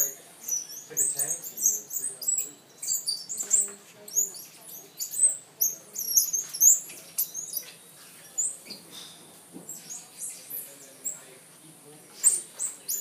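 Squirrel monkeys giving many short, very high-pitched squeaks and chirps in quick succession while they wrestle and chase each other.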